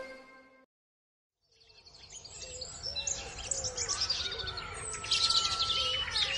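Farmyard sound effect of small birds chirping and singing, starting about two seconds in after a short silence and growing busier.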